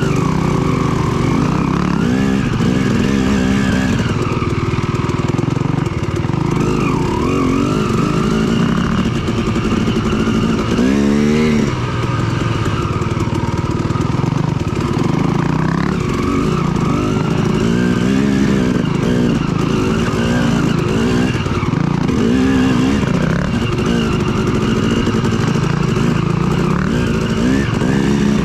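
Yamaha WR450F single-cylinder four-stroke dirt bike engine under way, revs rising and falling over and over with the throttle. About eleven seconds in, the revs rise sharply and fall away quickly.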